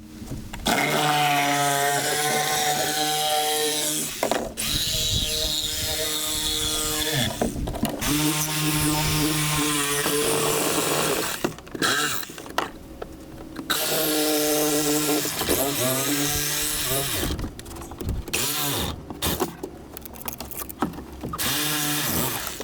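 Handheld power tool cutting or sanding fiberglass on a skiff's floor. It runs in several bursts of a few seconds each with short breaks between them, and is more stop-and-start near the end.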